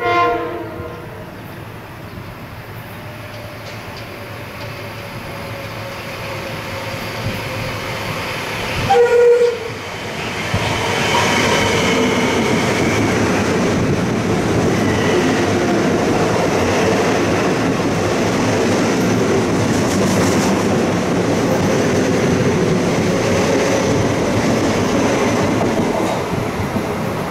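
A Metro-North commuter train sounds two short horn blasts about nine seconds apart, the second the louder. It then passes close by with a steady rumble of wheels on rail, with high squeals from the wheels mixed in.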